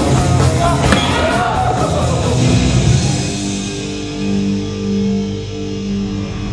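Rock music with guitar. It plays densely at first, then about halfway through gives way to a few long held notes.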